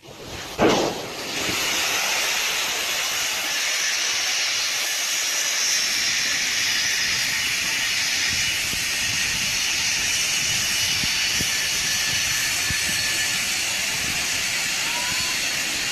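A short loud sound just under a second in, then a steady hissing rush of grain pouring out of a ruptured grain bin as it collapses.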